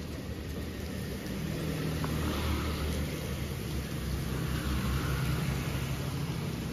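A motor scooter's small engine running as it rides along the wet street, its tyres hissing on the wet road, over the steady sound of rain.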